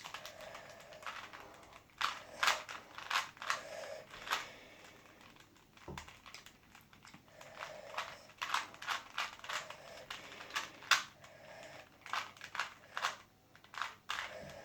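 A Rubik's Cube being twisted quickly by hand: bursts of rapid plastic clicks as the layers turn, broken by short pauses between move sequences.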